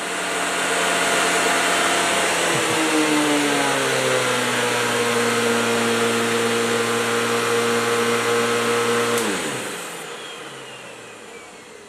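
Hoover Sensotronic System 50 canister vacuum cleaner running at a steady pitch, settling slightly lower about three seconds in. It is switched off about nine seconds in, and its motor whine falls away as it winds down.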